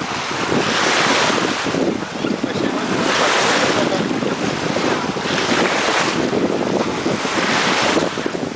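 Sea waves washing and splashing in the shallows, with wind buffeting the microphone; the noise swells and eases every second or so.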